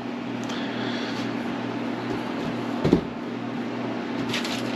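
Steady low hum, like a fan or air conditioner running, with a short knock about three seconds in and a few light clicks near the end, typical of small parts being handled on a workbench.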